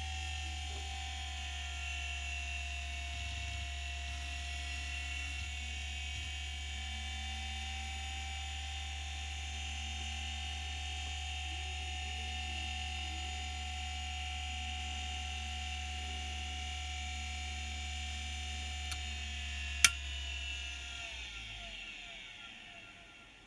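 Seagate ST1480N hard drive spinning at speed with a steady whine over a low hum, then a sharp click about 20 seconds in. After it the whine falls in pitch and fades as the platters spin down.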